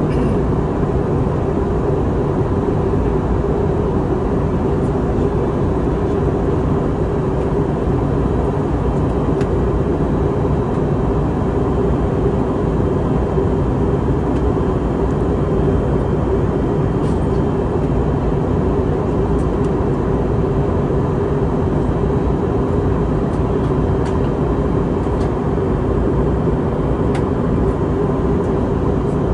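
Steady cabin noise of an Airbus A321neo in flight: a continuous drone of engines and airflow with a constant hum, and a few faint ticks.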